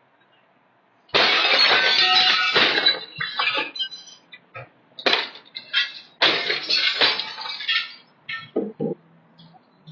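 Loud crashing and smashing in three main bursts. The first starts about a second in and lasts nearly two seconds, and is the loudest; scattered knocks and clinks follow near the end.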